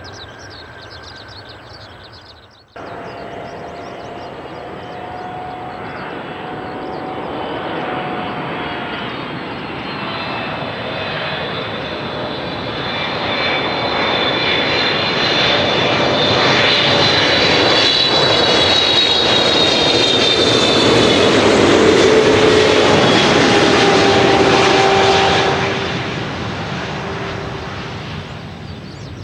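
Turkish Airlines Boeing 777-300ER's twin GE90 turbofans on final approach at low power. A jet roar grows steadily louder, with a high whine and tones sliding down in pitch as the aircraft passes close by, then drops off about 26 seconds in. In the first three seconds a fainter jet sound from an earlier landing cuts off abruptly.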